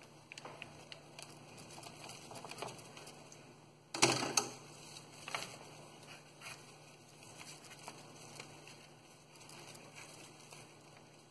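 Hands pulling apart the tangled roots and soil of a clump of chili pepper seedlings: soft rustling of leaves and crumbling soil. There is a louder crackle about four seconds in and a smaller one about a second later.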